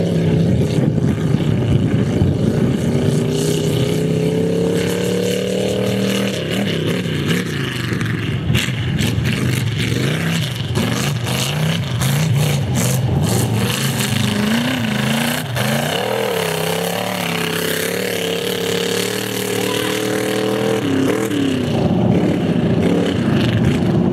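An off-road race vehicle's engine revving hard under load. Its pitch climbs steadily, drops sharply, then rises and falls again several times, with scattered knocks in the middle.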